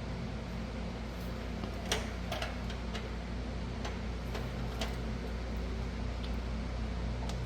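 Scattered light clicks and taps, about eight of them, as greased brake caliper guide pins are worked back into their bores in the caliper bracket, over a steady low hum.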